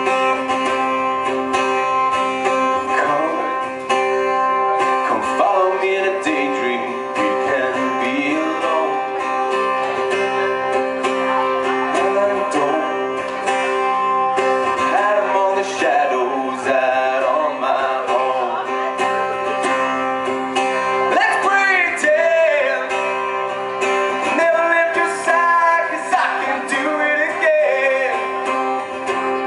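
Live amplified solo song: a strummed acoustic-electric guitar with a man singing over it.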